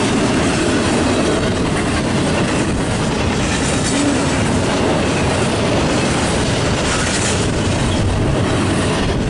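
Double-stack intermodal well cars of a freight train rolling past. Their steel wheels on the rails make a steady, loud rolling noise.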